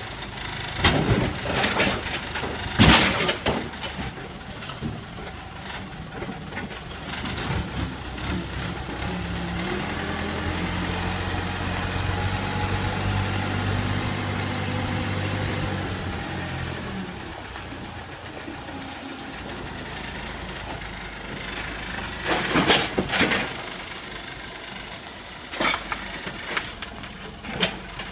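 1990 JCB 3CX backhoe loader's diesel engine running and working harder for several seconds mid-way. Loud crashes of scrap metal tipped from the front bucket into a steel skip come about one and three seconds in, and more metal clattering comes near the end.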